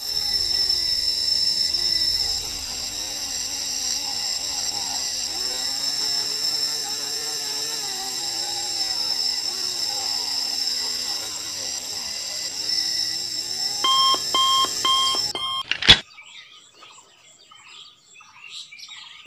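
Petrol-pump fuelling sound: a steady high electronic whine over a rough hum while fuel is dispensed, then four quick beeps near the end before it stops.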